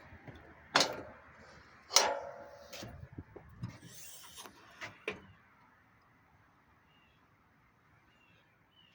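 Cab door of a Kubota SVL97-2 skid steer being handled: a run of sharp clicks and clunks from the latch and door over about five seconds, one of them with a brief metallic ring about two seconds in.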